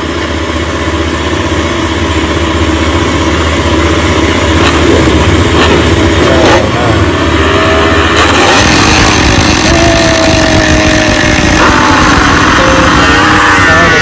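Several MotoGP race motorcycles held at high revs on the start line, growing louder about eight seconds in, then accelerating away with rising pitch near the end.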